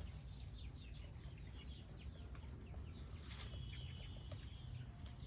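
Faint, busy bird chirping: many short, high, downward-sliding notes, with one longer held high note a little past the middle, over a steady low rumble.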